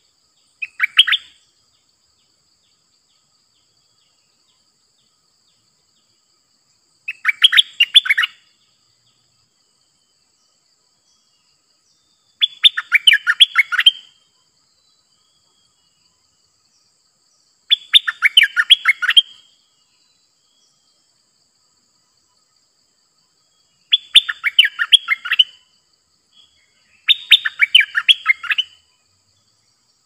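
Stripe-throated bulbul singing six short phrases of rapid notes, each a second or two long, about five seconds apart.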